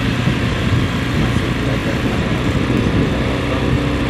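A small motorbike running steadily on the move: a low, even engine hum under a steady rushing noise.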